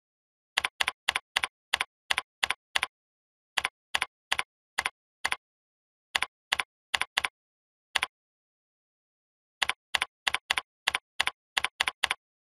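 Keystroke clicks of typing on a computer keyboard: single sharp clicks, about four a second, in short runs broken by pauses of a second or more, with dead silence between them.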